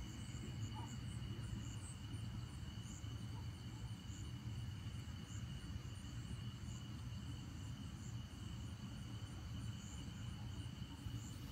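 Night insects singing in chorus: steady high trilling, with a faint higher chirp repeating a little faster than once a second, over a steady low hum.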